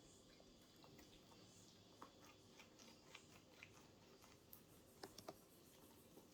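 Near silence with faint, scattered small clicks and crackles of homemade slime being squeezed and kneaded in the hands, a few slightly louder about two seconds in and around five seconds in.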